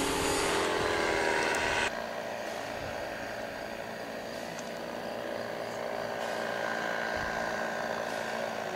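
Paramotor trike's engine and propeller droning in flight: a steady hum of many even tones that drops in level about two seconds in.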